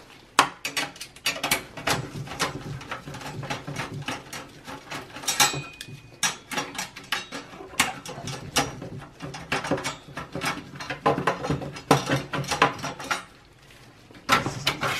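Rapid, irregular clicking and rattling of plastic and sheet-metal parts inside a Dell Precision Tower 5810's steel case as a plastic piece is worked loose by hand, pausing briefly shortly before the end and then clattering again.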